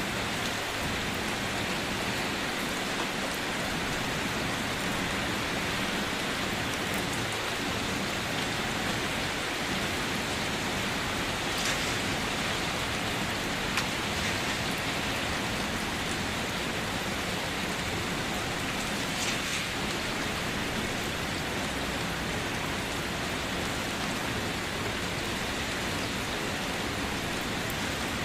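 Steady rain falling as an even hiss, with a couple of brief, slightly louder drop or splash sounds partway through.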